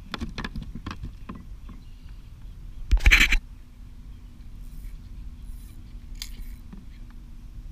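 Clicks and scrapes of a hooked bluefish being handled on a plastic kayak, then, about three seconds in, a loud half-second burst as the fish slaps and thrashes against the kayak deck.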